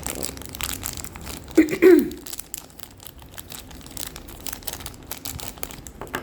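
Blind-box packaging being handled and opened by hand: a run of quick plastic crinkles and crackles. A short vocal sound about a second and a half in is the loudest moment.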